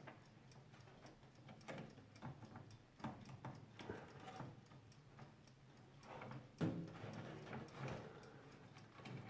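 Mechanical oven timer (minuterie) ticking: a steady run of faint ticks, with a few light knocks from handling the part, including one about two-thirds of the way through.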